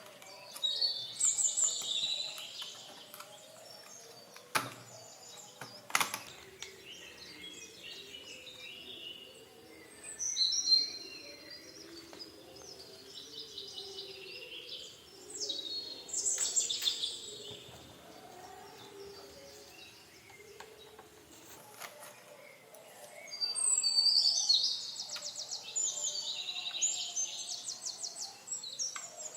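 Songbirds singing in bouts of high trills and whistles, the longest near the end. A few sharp clicks stand out about four and six seconds in.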